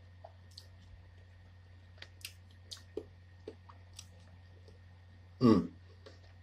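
A man chewing a piece of chocolate: soft, scattered mouth clicks and smacks, then one short, louder burst of sound from the mouth about five and a half seconds in.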